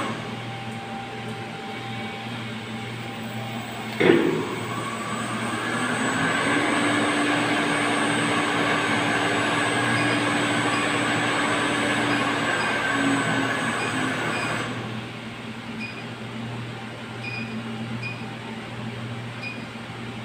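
Steady hum in a booster-pump room. About four seconds in there is a sharp clack, then a motor hum rises to a steady pitch, runs for about nine seconds and cuts off suddenly. After that comes a handful of short electronic beeps from the pump controller's keypad.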